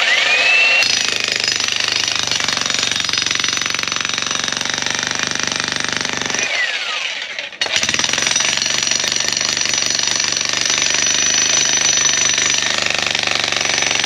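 VEVOR 1500-watt electric demolition jack hammer with a flat chisel bit, hammering into hard rock. Its motor whines up as it starts. It stops about six seconds in, winding down, and starts hammering again a second later.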